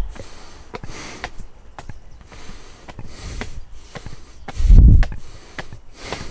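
A hiker's heavy breathing while climbing, with scattered scuffs and clicks of footsteps. A loud low rumble on the microphone comes about five seconds in.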